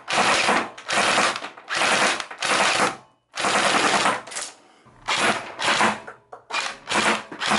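Airsoft rifle firing a string of about ten short full-auto bursts at a cardboard box, with one longer burst just after the middle.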